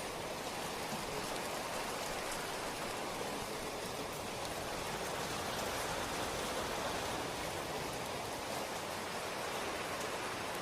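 Steady rain falling, an even hiss of many drops with faint individual patters.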